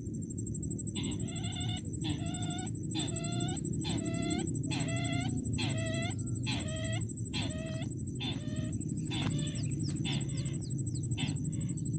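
Sintar bird call: a run of short, harsh calls, about two a second, each dropping in pitch at its end. They start about a second in and give way near the end to weaker, quicker calls. A steady high whine and a low rumble run underneath.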